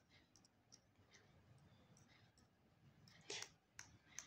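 Faint, scattered clicks and taps of puzzle pieces being handled and set down, with a louder tap about three seconds in and two more sharp clicks near the end.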